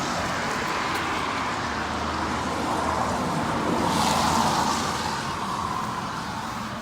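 Steady hiss of heavy rain mixed with tyre noise from traffic on a wet road. It swells about four seconds in, as a vehicle goes by, then eases.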